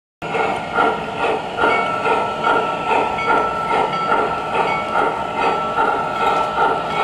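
MTH O-gauge model of a DM&IR 2-8-8-4 Yellowstone steam locomotive running, its onboard sound system playing rhythmic steam chuffs about two and a half a second over a steady high whine. It starts abruptly about a quarter second in.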